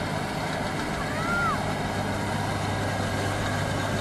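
Rice combine harvester's diesel engine running steadily, with a constant low hum. About a second in, a brief call rises and falls over it.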